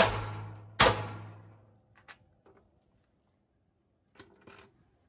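Hammer striking a welded steel propane-tank bracket on a motorhome frame to knock it loose, two heavy blows less than a second apart, each ringing out and fading over about a second. A few faint clicks follow.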